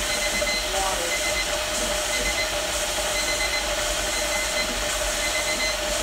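Electric kettle heating toward the boil: a steady rushing hiss with a constant hum under it, and faint short high pips recurring about once a second.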